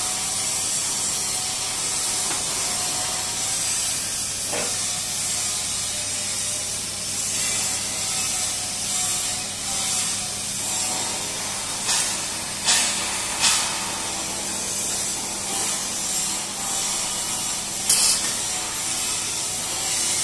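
Steady hiss and low electrical hum of a pipe fabrication shop with the welding arc off, broken by a few sharp metal clicks and knocks: three in quick succession about two-thirds of the way through and one more near the end.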